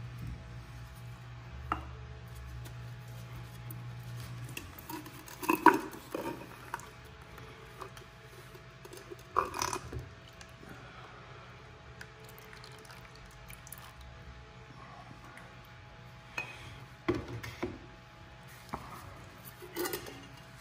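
Metal parts of a hydraulic oil filter being handled over a plastic tub of drained oil: scattered knocks and clinks with wet oily handling, the loudest knocks about six and ten seconds in. A low steady hum stops about four seconds in.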